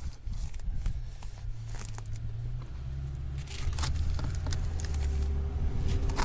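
A vehicle engine running, a steady low rumble that grows louder about three seconds in, with scattered light rustling and clicks as phone book pages are handled.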